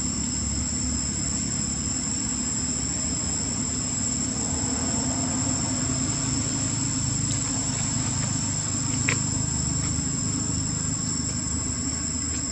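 Steady high-pitched insect drone, a constant whine at two pitches, over a low steady rumble, with one brief sharp chirp about nine seconds in.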